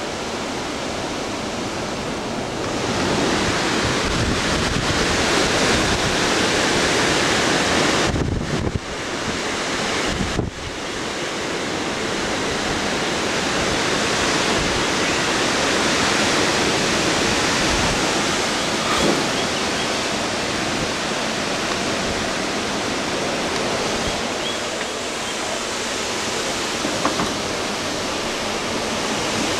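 Hurricane wind and rain as a steady, loud roar, with wind buffeting the microphone. It drops out briefly twice, about eight and ten seconds in.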